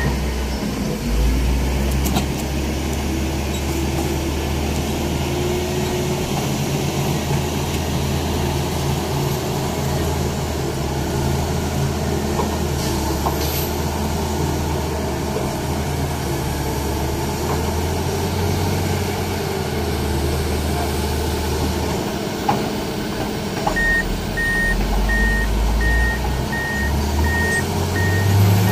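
Heavy diesel engine of a crane running steadily during a lift, its note dropping and then climbing over the last few seconds. A rapid, evenly repeating warning beep starts up about five seconds before the end.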